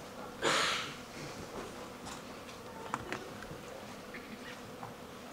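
Quiet auditorium room noise during a blackout, with one short hissing rush of noise about half a second in and a few faint clicks and knocks after it.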